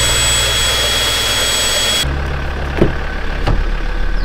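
A cordless drill runs at a steady speed for about two seconds, driving a caravan drawbar jack. It then cuts abruptly to a vehicle engine running with a low, steady hum.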